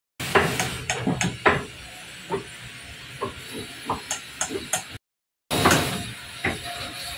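Irregular knocks and clicks over a steady hiss, cut off by a brief dead silence about five seconds in before more of the same.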